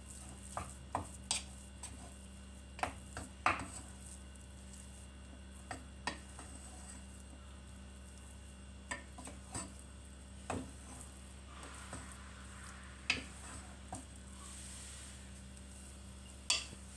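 Wooden spoon stirring thick choux pastry dough in a granite-coated nonstick pot over medium heat, giving irregular soft knocks and scrapes against the pan, more frequent in the first few seconds. A steady low hum runs underneath.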